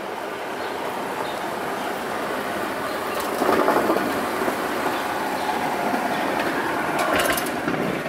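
Street traffic on a wet street: a vehicle rolling past, loudest about three and a half seconds in, with a few clicks and knocks about seven seconds in.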